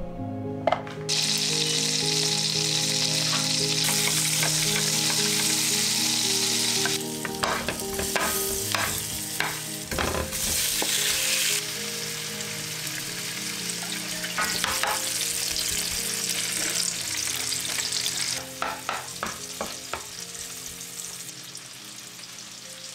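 Mushrooms, shishito peppers and salmon frying in butter in a nonstick pan, a steady sizzle with spatula clicks and scrapes against the pan. The sizzle surges about a second in, eases after several seconds and flares up again briefly near the middle.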